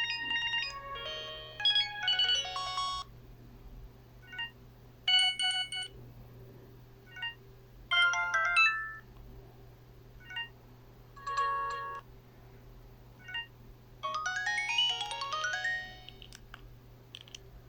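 Sony Ericsson T630 mobile phone playing short previews of its polyphonic ringtones, five snippets of one to three seconds each, several notes sounding together. A short beep comes before each snippet as the list moves to the next tone.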